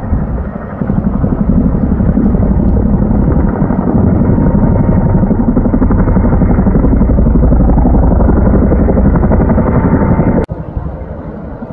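Tandem-rotor Chinook helicopter flying close overhead, its two rotors beating rapidly with a heavy low drone, getting louder about a second in. Near the end it cuts suddenly to a quieter, more distant rotor sound.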